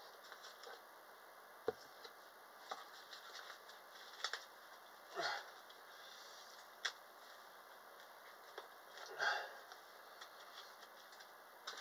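Faint handling noise from small packaging: scattered light clicks and taps, with two short rustles about five and nine seconds in.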